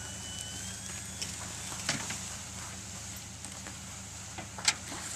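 A vehicle engine idling steadily with a low hum, with scattered light knocks and rustles on top, the sharpest a little before the end.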